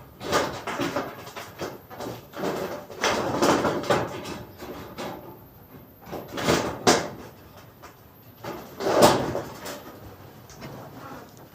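Irregular knocks, thuds and scraping of hard objects being handled, with sharper knocks about six and a half, seven and nine seconds in.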